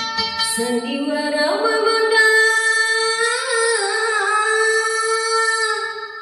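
A woman singing a slow, drawn-out melodic line without accompaniment, the voice climbing in steps and holding long notes with a wavering vibrato before fading out near the end. Plucked gambus notes are heard only at the very start.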